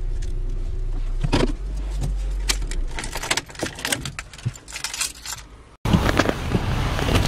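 Sounds inside a car's cabin: a low steady hum with scattered light clicks and rattles over the first five seconds or so, then a sudden cut to a louder, even rush of car noise.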